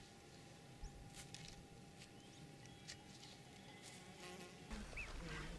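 Faint, steady buzzing of flying insects, like flies, over a quiet pasture, with a few soft clicks. Near the end, a short high call.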